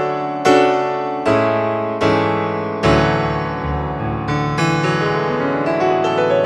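Sampled acoustic piano from a Kontakt library, played as a series of struck, sustained chords roughly once a second, then a rising arpeggio climbing up the keyboard near the end.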